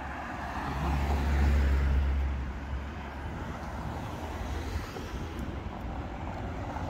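A car passing close by on the street: a low engine hum and tyre noise swell to a peak about a second and a half in, then fade. Steady traffic noise follows.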